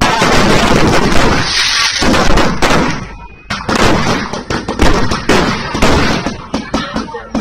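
Fireworks going off in rapid succession: many loud sharp bangs and crackles close together, with a brief hiss about a second and a half in and a short lull near three seconds before the bangs resume.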